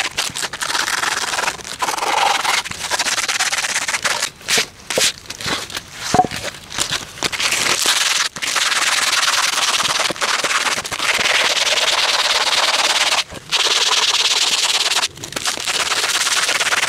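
Sandpaper rubbed by hand over a carved wooden dish: a steady dry scratching, broken by several short pauses.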